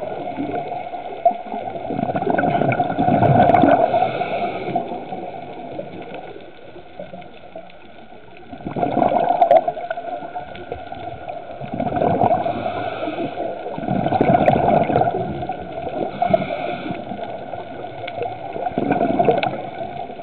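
Muffled underwater water noise, gurgling and rushing and swelling loudly every few seconds.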